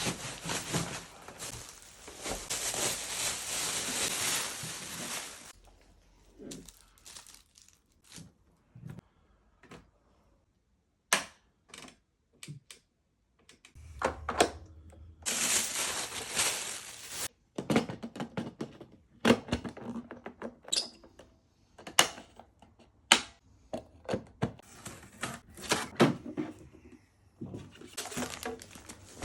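Packaging of a Sage Barista Express coffee machine being unboxed: plastic wrapping crinkling and tearing for the first five seconds or so and again about halfway through, with many scattered clicks, taps and dull knocks of cardboard and parts being handled.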